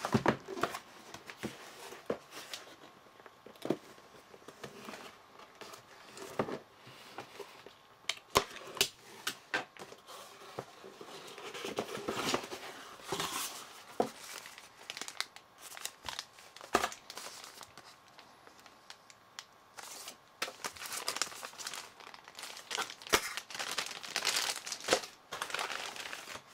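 Packaging being handled and unpacked: a cardboard box, paper CD sleeves and a plastic anti-static bag crinkling and rustling, with irregular clicks and taps from the cardboard and discs.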